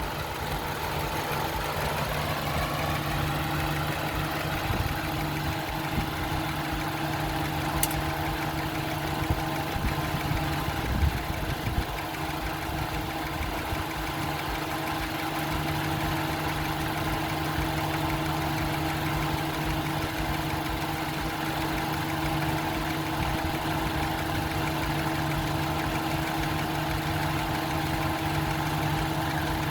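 Honda CR-V idling with its electric radiator cooling fan running, a steady hum switched on by the newly replaced thermostat (fan) switch. The hum cuts off abruptly at the very end as the switch turns the fan back off, a sign that the new switch is working.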